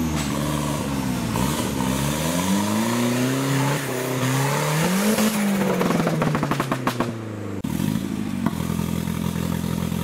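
Off-road 4x4's engine revving up and down under load, with a spell of rapid rattling a little past the middle. After a sudden break about three-quarters of the way through, an engine runs at a steady pitch.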